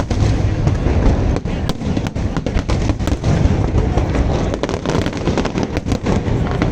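Dense aerial fireworks barrage: many shells bursting in quick succession, with sharp cracks over a continuous low rumble.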